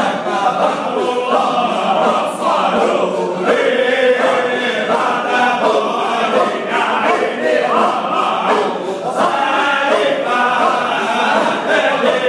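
A group of men chanting together in a Sufi hadra, a continuous devotional song.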